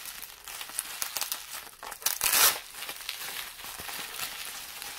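Plastic bubble wrap crinkling and rustling as hands pull it off a figure, loudest about two seconds in.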